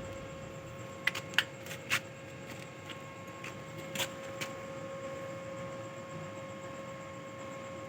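Faint steady hum with a few short, light clicks: a cluster about one to two seconds in and another near four seconds.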